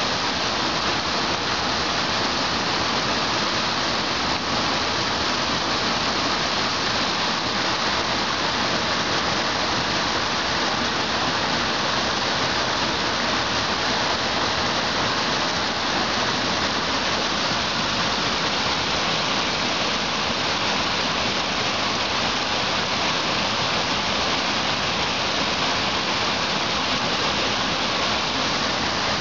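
Water pouring over a small concrete weir, a steady rushing splash.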